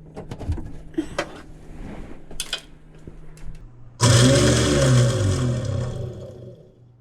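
Clicks and knocks of handling under the sink, then about four seconds in the freshly unjammed garbage disposal switches on, its motor running loudly for about two seconds before winding down.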